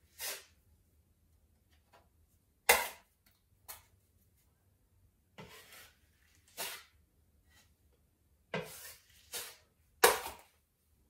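Steel putty knife scraping filler against a stainless steel mud pan and spreading it over the wall, in about eight short, separate strokes. The sharpest scrapes come about three seconds in and near the end.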